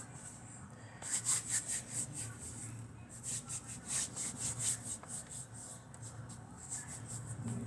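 Hands kneading and rubbing a soft flour-and-water dough worked with Vaseline, with quick rhythmic rubbing strokes, about five a second, in two runs, the second longer.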